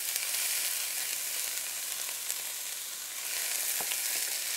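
Finely chopped onions sizzling in hot fat in a stainless steel pan as they are stirred with a wooden spoon: a steady high hiss, with a couple of faint knocks of the spoon in the pan.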